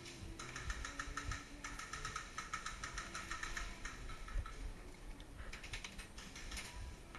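Airsoft electric gun firing full-auto: rapid, even clicking in bursts, a long run of about four seconds and then a shorter one after a pause.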